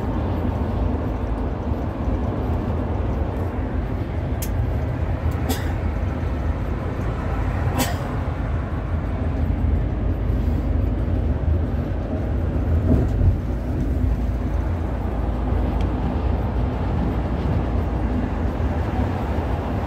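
Steady low rumble of engine and tyre noise heard inside a large vehicle driving in highway traffic, with three brief clicks between about four and eight seconds in.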